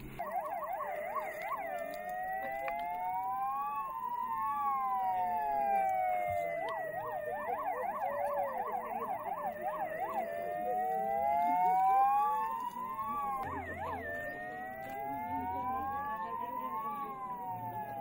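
Several electronic emergency sirens sounding together. Slow rising-and-falling wails overlap one another, and fast yelping cycles break in three times: at the start, in the middle, and a little after two-thirds of the way through.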